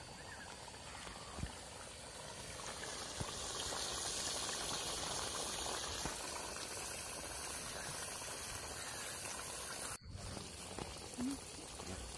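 Country chicken gravy bubbling at a boil in a large aluminium pot over a wood fire as it cooks down, a steady hiss that grows louder a few seconds in. It cuts out briefly near the end.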